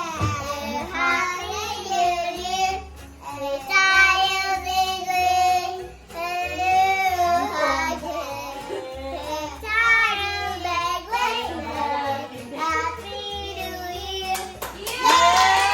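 A child singing a melody over backing music with a steady beat.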